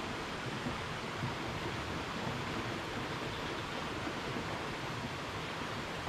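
Steady rushing of muddy water flowing fast along a stone-lined irrigation canal.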